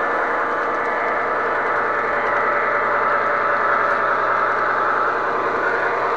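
MTH O-gauge model train running on three-rail O-31 track, picked up by a camera riding on the train: a steady whir and rumble of wheels and motor with a low hum underneath.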